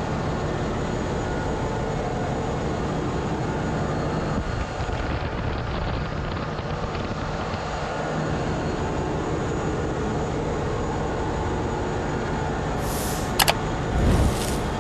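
Hyundai Himsen marine diesel generator running steadily at 720 rpm, just started and idling without load, with a loud engine-room drone and steady low tones. A few sharp clicks and a low thump come near the end.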